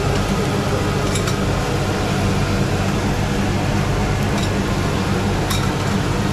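Meat patties and sausages sizzling on a street-food grill under a steady fan-like hum, with a few sharp clicks of a metal spatula on the grill.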